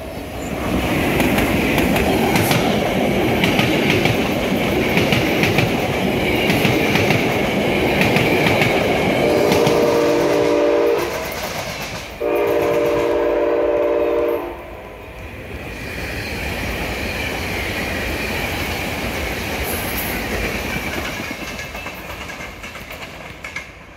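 SEPTA Regional Rail commuter train passing at speed, its wheels clattering loudly on the track. About nine seconds in, a train horn sounds two long blasts, the second about two seconds long. After that, a second train runs by more quietly.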